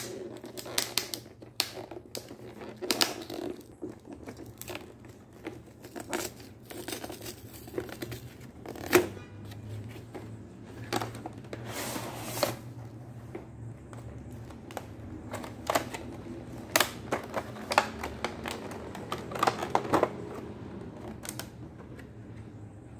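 Clear plastic blister packaging and cardboard of a Pokémon card collection box being handled and opened: irregular clicks, crackles and rustles, with a sharp snap about nine seconds in. A faint steady low hum runs underneath.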